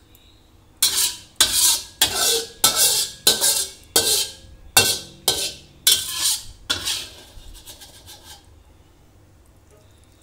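Metal spatula scraping food residue across the bottom of a frying pan in quick strokes, about two a second. The scrapes begin about a second in and trail off into fainter ones after about seven seconds.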